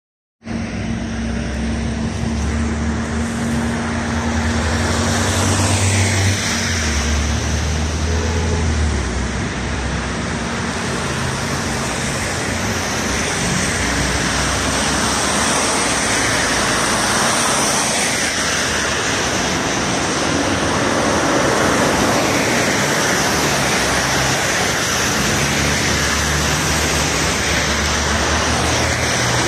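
City street traffic on a wet road: tyres hissing on the wet surface as cars pass one after another, over a low rumble of engines.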